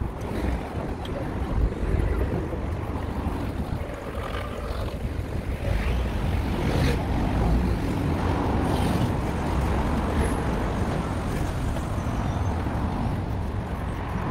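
Steady city street noise: a low rumble of traffic mixed with wind on the microphone.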